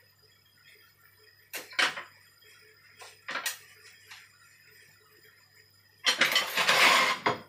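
Kitchen knife clicking and tapping against a cutting board and plate in a few sharp knocks, then a louder noisy sound lasting about a second near the end.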